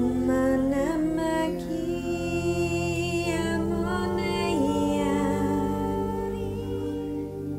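Meditative music of layered wordless vocals (light language) humming and sliding up into long held notes over a steady low drone.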